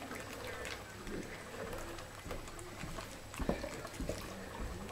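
Four-week-old Alaskan malamute puppies eating from a dish: scattered wet lapping and smacking clicks, with one louder knock about three and a half seconds in.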